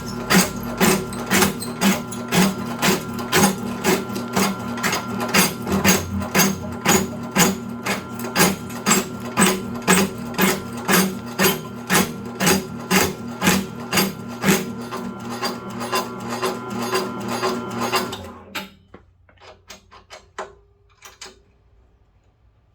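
Electric medicinal-wood and herb cutting machine running, its blade chopping in even strokes about twice a second over a steady motor hum. The machine stops about 18 seconds in, leaving a few light knocks.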